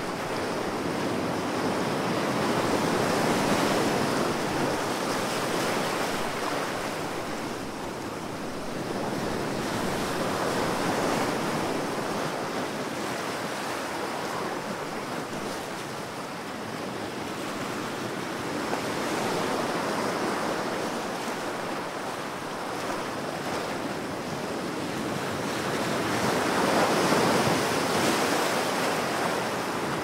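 Ocean waves: a steady wash of surf that swells and eases in slow surges about every eight seconds.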